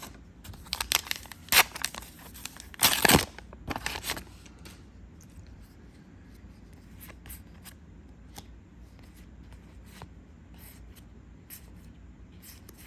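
Foil trading-card booster pack being torn open: a few sharp rips in the first four seconds, the loudest about three seconds in, followed by faint scattered clicks of the cards being handled.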